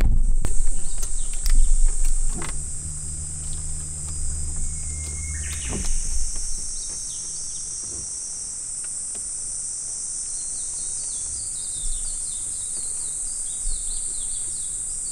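Steady high-pitched drone of summer insects, with birds chirping. From about ten seconds in, a quick run of repeated short chirps joins it. In the first few seconds there are low rumbles, and for about three seconds a low hum.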